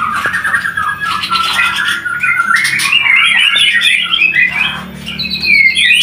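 Starling (jalak) giving a continuous run of harsh, rapid, chattering alarm calls, the warning it gives when a snake is in the aviary.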